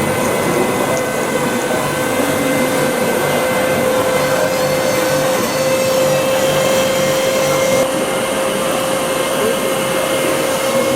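Steady high-pitched whine of a radio-controlled construction model's small electric motor and gearing, over the general noise of a busy hall.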